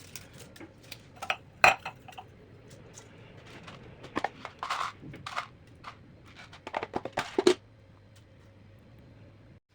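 Irregular clicks, knocks and crunches of things being handled and set down, over a low steady hum; the handling stops about three-quarters of the way through.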